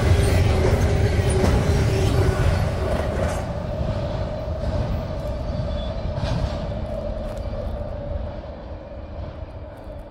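Tail end of a double-stack intermodal freight train passing at about 60 mph: the rumble and clatter of the well cars' wheels on the rails, with a steady ringing note under it, fading away steadily as the last car goes by and the train recedes.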